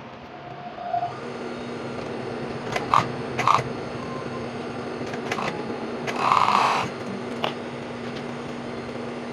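Cut cotton fabric pieces being handled at a sewing table: a few light knocks and taps and one louder rustling swish of cloth a little past the middle. A steady electric hum starts about a second in.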